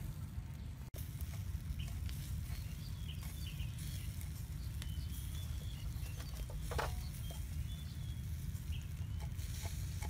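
A cleaver chopping red chili on a wooden board, giving a few sharp knocks, over a steady low rumble, with faint short bird chirps.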